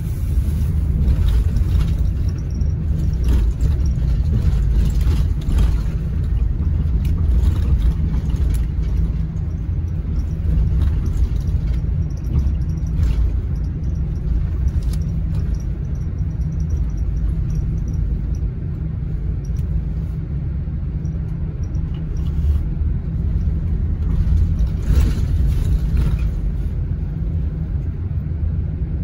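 Highway coach driving, heard from inside the cabin: a steady low rumble of engine and road noise, with a few faint knocks.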